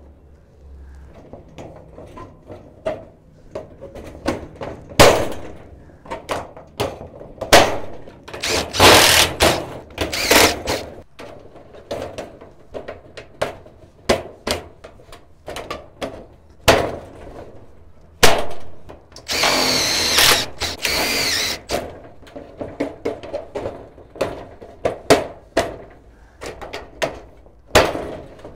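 Steel shed door channels being knocked onto thin steel wall sheets and handled: many sharp metallic knocks and clanks. A cordless drill drives screws in short runs, the longest lasting about two seconds around two-thirds of the way through.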